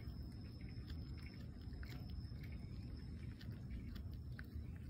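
Orange tabby cat chewing a raw fresh fish, its teeth making irregular soft clicks on the flesh and bones, over a steady low rumble.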